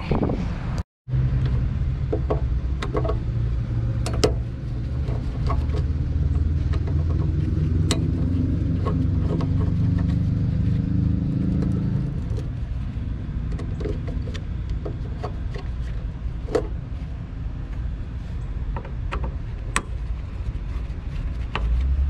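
A steady low rumble, with scattered light clicks and taps of a screwdriver and wires being handled in an air conditioner's electrical compartment.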